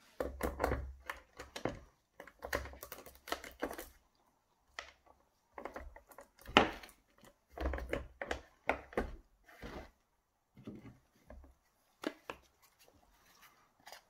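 Handling noise from a plastic electric chainsaw body being moved about and set down on a metal-topped bench: irregular clusters of clicks, knocks and dull thumps with short pauses between.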